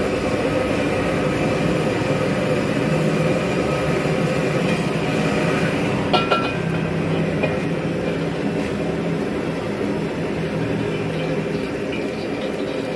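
Wok stove's gas burner running at full flame with a loud, steady rushing noise. About six seconds in, a couple of metal clanks as the steel wok is set back down on the burner grate.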